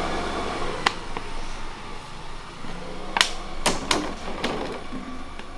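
Empty plastic water bottles being handled and set down, giving a few sharp plastic clicks and taps, most of them close together a little past the middle, over a steady hiss.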